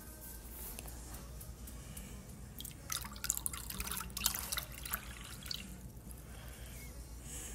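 Water poured from a drinking glass into a dog's water bowl, splashing and dripping for about two seconds from about three seconds in.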